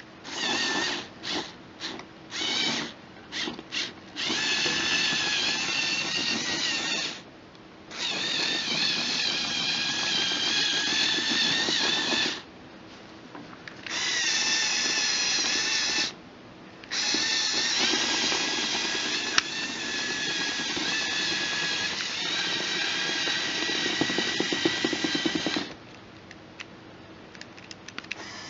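Lego Technic bulldozer's electric motors and gear train whining as it is driven by remote control. It goes in stop-start spurts: a handful of short blips at first, then several runs of a few seconds each with brief pauses between, and it stops near the end.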